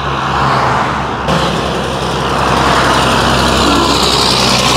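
Highway traffic passing close by: cars going by with tyre hiss and engine hum, then a heavy tractor-trailer truck passing near the end, the tyre and air noise swelling as it goes by.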